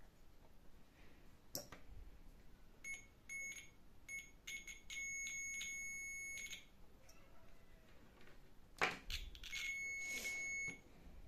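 Digital multimeter's continuity beeper sounding as the test probes touch the brass antenna: a few short broken beeps, then a steady beep of about a second and a half, and later another of just over a second, signalling a low-resistance path through the antenna. Sharp clicks of the probes come before each run of beeps, the second one the loudest sound.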